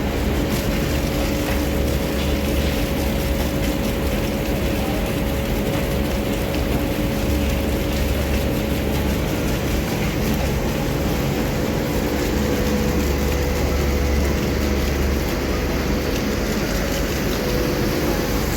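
Heavy diesel machinery engine running steadily at a constant speed, with a deep hum and a rattly mechanical edge.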